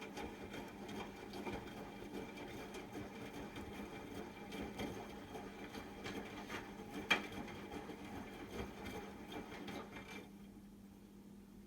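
Hotpoint washing machine running early in a short wash cycle: a steady motor hum with the drum turning, a sharp click about seven seconds in, and the machine going quieter near the end.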